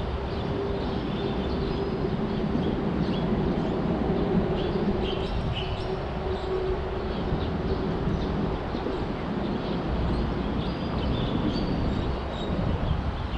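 Steady rumble of road traffic on the highway viaduct overhead, with a held hum that fades about two-thirds of the way through. Small birds chirp now and then.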